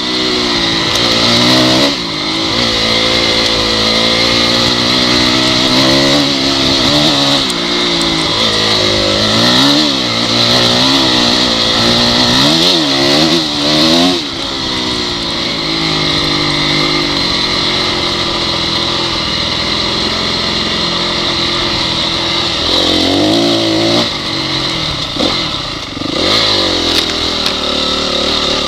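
Honda CRF dirt bike's single-cylinder four-stroke engine under way, revving up and down over and over as the throttle is opened and closed, with quick rises and falls in pitch around the middle.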